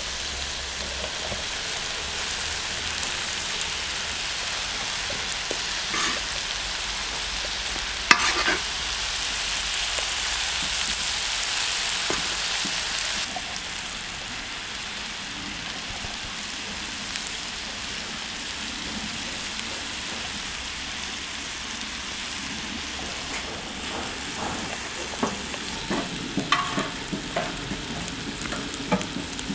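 Liver and vegetables sizzling on a hot iron saj griddle over embers, a steady frying hiss that drops noticeably about halfway through. A sharp knock comes about 8 seconds in, and light clicks and taps of metal come near the end.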